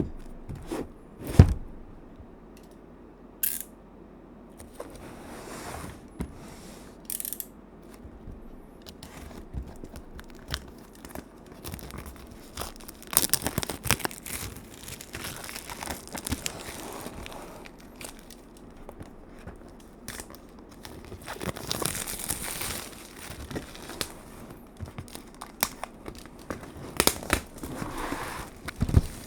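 Keyboard packaging being opened and handled: crinkling and tearing of wrapping, broken by scattered sharp clicks and knocks.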